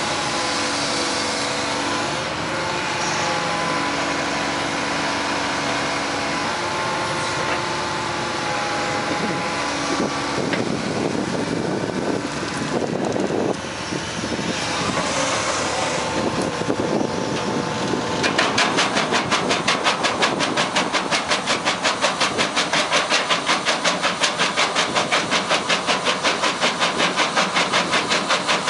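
Hitachi EX200 excavator's diesel engine and hydraulics running steadily. About two-thirds in, the MB BF70 crusher bucket's jaw starts up with a fast, even pulsing as it crushes rock and discharges gravel.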